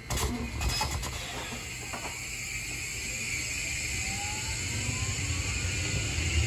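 JR Kyushu 821-series electric train pulling away, its Mitsubishi SiC VVVF inverter giving a whine that rises in pitch as it accelerates, with the running noise growing louder. A few sharp clicks sound in the first two seconds.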